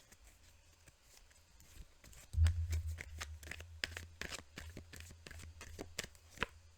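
Tarot deck being shuffled by hand: a rapid run of crisp card clicks starting about two seconds in with a low bump of handling, and stopping shortly before the end.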